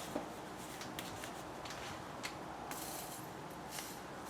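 A few faint, light clicks and rustles from small objects being handled, over a steady faint hiss.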